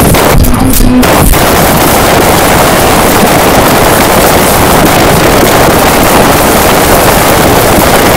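A song pushed into extreme distortion and clipping, heard as a constant wall of harsh, crackling noise at full loudness.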